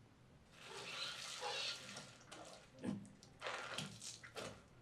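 Animated-film soundtrack effects played through a home-theatre center-channel speaker: a hissing rush of noise for about a second and a half, then a run of short scattered clicks and rustles.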